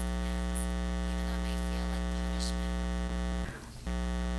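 Steady electrical mains hum with a buzz of many even overtones. It drops out for a split second about three and a half seconds in, then returns.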